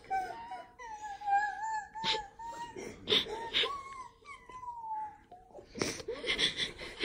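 A run of high, wavering, drawn-out whining cries, one after another, broken by sharp sniffing or sobbing breaths.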